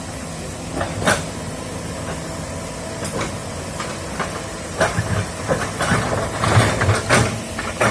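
Excavator engine running steadily, with scattered metallic knocks and a cluster of clanking and scraping between about five and seven and a half seconds in.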